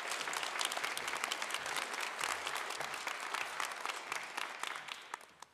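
Audience applauding, a steady round of many hands clapping that dies away near the end.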